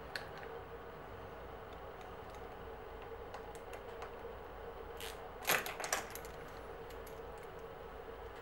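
Light metallic clicks and clinks from a hex key and the clamps of a bicycle brake lever and trigger shifter being positioned and tightened on the handlebar: a few scattered ticks, then a quick cluster about five to six seconds in, over a faint steady hum.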